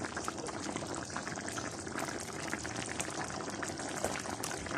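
Pot of creamy chicken stew with potatoes and carrots simmering, a steady bubbling and crackling of the sauce.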